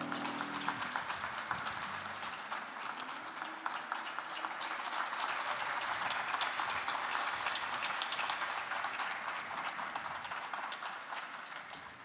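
The final chord of the music dies away in the first second, then an audience applauds with dense, steady clapping that fades out near the end.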